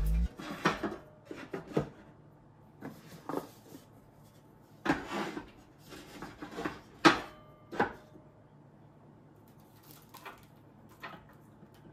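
Scattered light wooden knocks and rubbing as a small round bentwood box is handled and set on a wooden shelf. The sharpest knock comes about seven seconds in.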